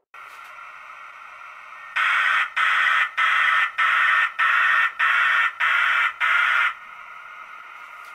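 G scale model steam locomotive running with a steady whine, overlaid by eight loud, evenly spaced electronic pulses about 0.6 s apart that start and stop abruptly.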